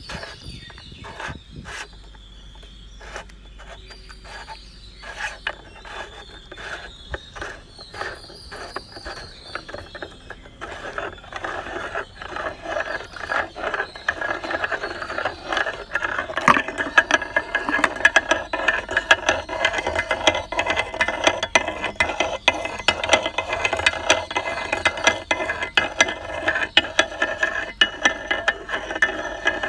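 Meat grinder crushing green jelly: scattered clicks with a faint high squeak at first, then from about eleven seconds in a denser, louder crackling grind that keeps building toward the end.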